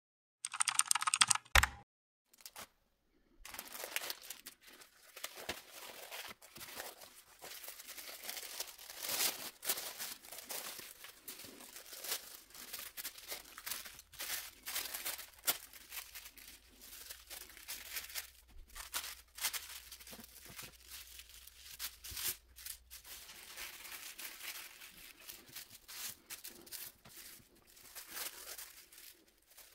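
Sheets of tissue paper being spread, smoothed and folded by hand, crinkling and rustling with many small crackles. A short loud sound comes about half a second in and lasts about a second.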